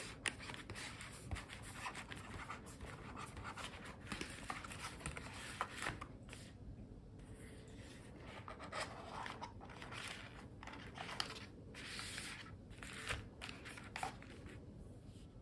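Packaging of a MOFT Snap phone battery pack handled and opened up close: soft scratching and rubbing with light taps and clicks, dying down near the end.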